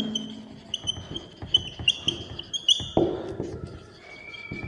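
Whiteboard marker squeaking against the board as words are written: a quick run of short, high squeaks for the first three seconds, then one longer, steady squeak near the end.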